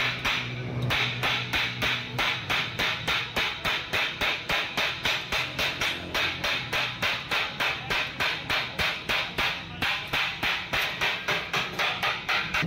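Hand hammer rapidly striking the folded seam of a rolled sheet-steel cylinder to close it flat, about four sharp metallic blows a second. The blows pause briefly about a second in and again near ten seconds.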